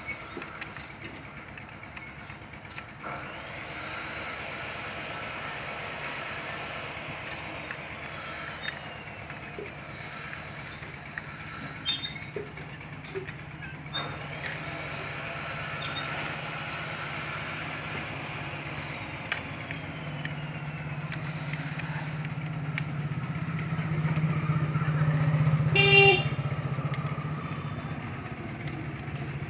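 Irregular metallic clicks and taps of hand tools as a timing chain tensioner is fitted and tightened into a motorcycle engine. Under them runs a steady low hum of background traffic, which grows louder about two-thirds of the way through, with a brief pitched sound near the end.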